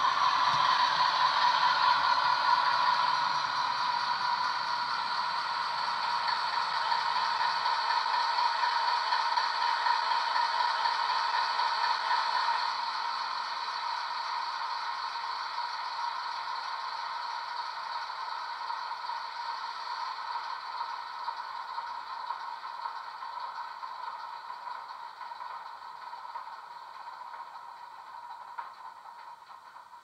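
A Hornby HM7000 sound decoder plays a Class 60 diesel engine sound through the model locomotive's small speaker, with a low rumble underneath that stops about eight seconds in as the model comes to a stand. Near the middle the engine sound drops a step, then fades away gradually.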